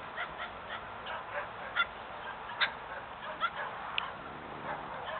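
Several dogs barking: many short, overlapping barks, several a second, with a few louder ones in the middle.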